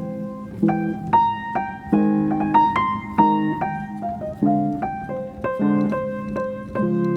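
Background piano music: a gentle melody of struck notes and chords, a new one about every half second.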